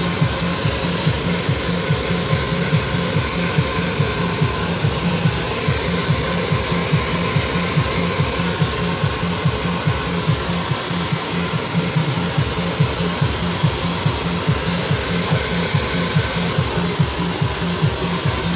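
Handheld hair dryer blowing steadily while it is worked through long hair, with a regular low beat of music, about two pulses a second, running underneath.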